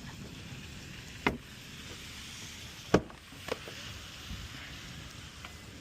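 Three sharp clicks or knocks at a car door from a locksmith's lockout work on a Toyota Prius, the loudest about three seconds in, over a steady outdoor hiss.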